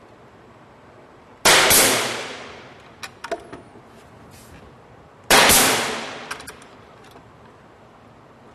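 Pin nailer firing twice, about four seconds apart, driving pins to fasten the bottom panel of a chest of drawers. Each shot is a sharp bang that trails off over about a second, with a few light clicks of handling in between.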